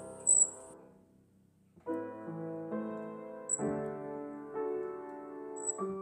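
Piano music: a chord dies away, and after about a second of near quiet the piano comes back in with a run of new chords. A brief high-pitched chirp, the loudest thing here, sounds about half a second in.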